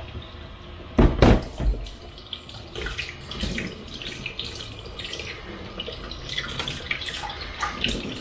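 Cold kitchen tap running into a stainless steel sink, water splashing over a cured salmon fillet as hands rub the salt-and-sugar cure off it, with uneven splashes throughout. A sudden loud knock and splash about a second in.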